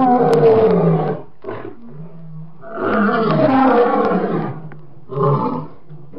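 Lion roaring: a roar of about a second at the start, a longer one about three seconds in, and a short one near the end.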